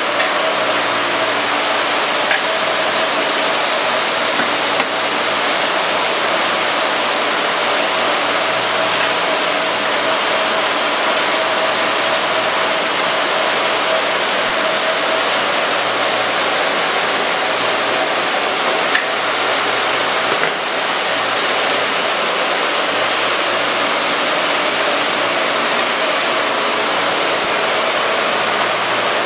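Abplanalp-Famtec CES 1-150-4S through-feed surface grinder running, grinding steel aircraft brake pads under flowing coolant. It makes an even, steady rushing noise with a constant hum in it, and a few brief clicks.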